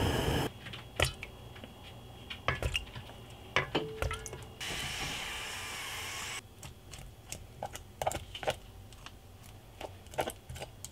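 Kitchen sounds of making mitarashi dango. Boiling water cuts off half a second in. Then come scattered clicks and taps of utensils against pots, a steady sizzle of skewered rice dumplings toasting on a griddle pan for a couple of seconds around the middle, and a wooden spoon working the thick sauce in a small saucepan near the end.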